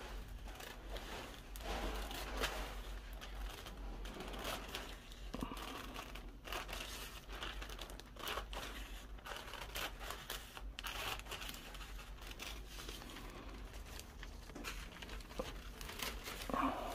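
Scissors snipping through thin smooth kite paper, trimming the covering around a kite frame and leaving a hem to fold over, with the paper rustling and crinkling as it is handled. Quiet, irregular small cuts and rustles with no steady rhythm.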